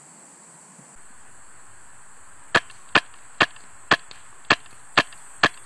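Scoped airsoft rifle fired seven times in quick semi-automatic succession, about two shots a second, each a sharp snap.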